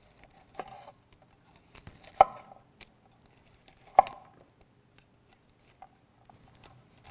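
Chef's knife cutting florets off a head of cauliflower on a wooden cutting board. Three sharp knocks of the blade striking the board come about a second and a half apart, with fainter small clicks between them.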